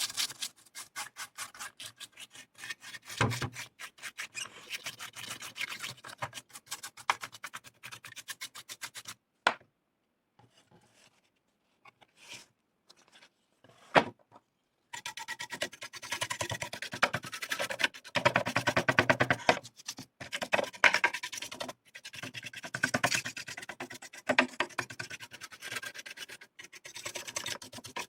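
Rapid scratchy rubbing strokes on an LCD TV's power-supply circuit board, in two spells with a mostly quiet pause of a few seconds around the middle.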